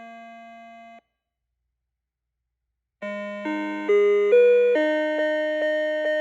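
ELGIN melody clock's electronic chime music: a held closing chord fades and cuts off about a second in, then after two seconds of silence the next tune starts in several voices of bright electronic tones, note by note, about three seconds in.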